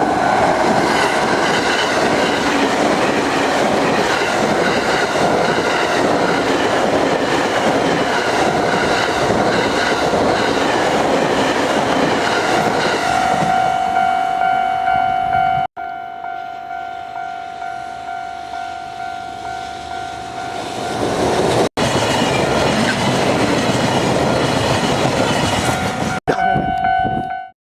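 A Japanese level-crossing warning bell dings about twice a second while a train runs over the crossing with a loud rumble and wheel clatter. About halfway through the train noise drops away suddenly, leaving the bell alone, and then a train's rumble rises again under the bell.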